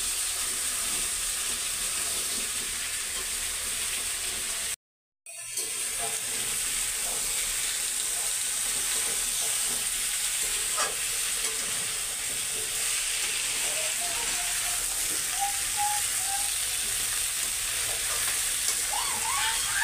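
Jackfruit pieces and onion frying in oil in a steel kadhai, sizzling steadily while a spatula stirs and scrapes them around the pan. The sound breaks off completely for a moment about five seconds in.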